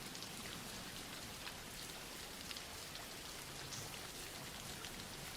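Soft, steady rain, with scattered individual drops ticking on a surface.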